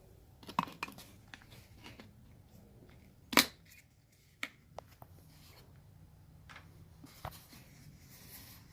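Oil drain plug being put back into the oil pan by hand: scattered light clicks and taps of handling, with one sharper knock about three and a half seconds in.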